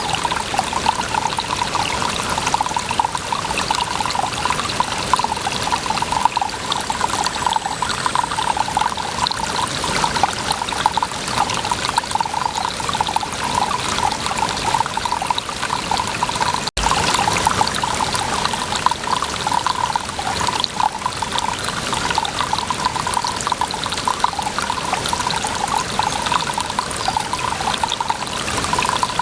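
Water pouring and trickling steadily, a continuous splashing flow, with a momentary break a little past the middle.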